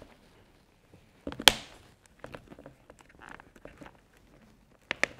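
Rustling and clicks as a padded interior piece is pressed into a Shoei motorcycle helmet, with one sharp snap about one and a half seconds in and two quick clicks near the end as it seats.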